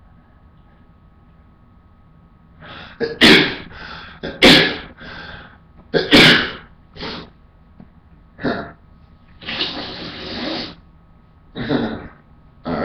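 A man sneezing, set off with a cotton swab in the nose. Three loud, sharp sneezes come in quick succession starting about three seconds in, with breaths between. Later there is a longer breathy exhale and one more short burst near the end.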